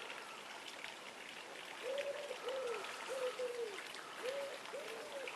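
A pigeon cooing in the background: a run of soft, arching coos in short phrases that starts about two seconds in, with a few faint clicks.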